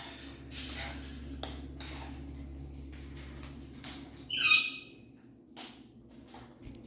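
A pet parrot gives one short, harsh squawk a little past the middle, over a low steady hum and a few faint clicks.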